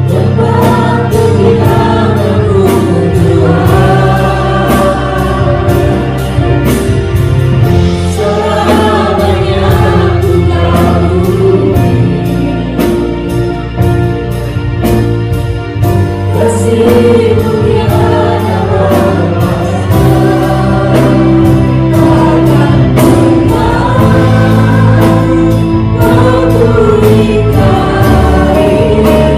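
A live worship band and several singers performing a slow Indonesian worship song: voices singing together in Indonesian over keyboard, bass and a steady drum-kit beat.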